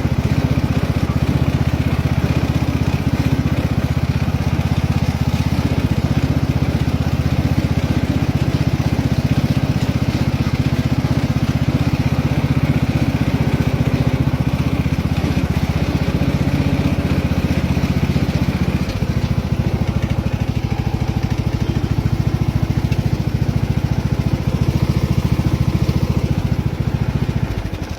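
Riding lawnmower engine running steadily under way, with a slight shift in its note about two-thirds through. The sound falls away just before the end.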